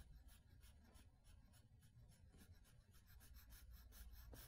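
Faint scratching of a pencil shading on paper, a quick even run of short back-and-forth strokes laying down a flat tone.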